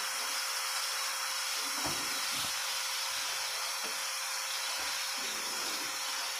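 Pieces of tilapia sizzling steadily in hot oil in a wok with sautéed garlic, ginger and tomato, the fish searing before water is added. A few soft knocks come up from the pan about two, four and five seconds in.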